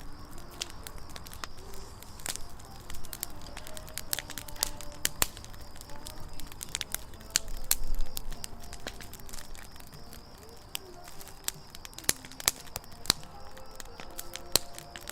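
Wood campfire burning, crackling with frequent sharp pops and a few short, faint whistling tones. About eight seconds in, a brief louder surge of noise.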